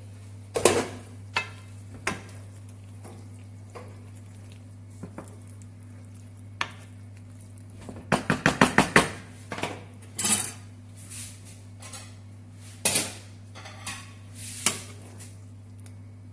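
Metal utensils knocking and scraping against a pan or plate as cooked potato gnocchi in meat sauce is tossed and served, including a quick run of about six knocks about halfway through, over a steady electrical hum.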